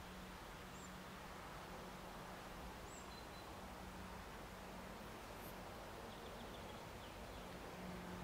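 Faint outdoor background noise with a steady low hum, and a few brief, high bird chirps.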